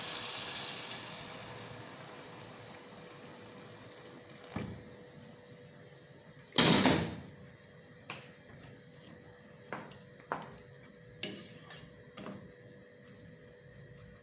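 Rice and onions sizzling in a cooking pot, the sizzle dying away over the first few seconds. About halfway through comes one loud, short rush of noise, followed by several light knocks of cookware and utensils.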